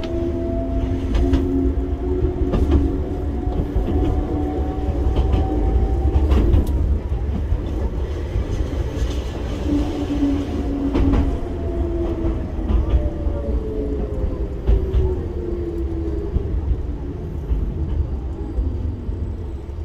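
Enoden 300 Series electric train running, heard from the driver's cab. A motor whine rises in pitch over the first few seconds, then falls from about ten seconds in as the train slows toward a platform. Under the whine is a steady rumble with scattered clicks of the wheels over the rails.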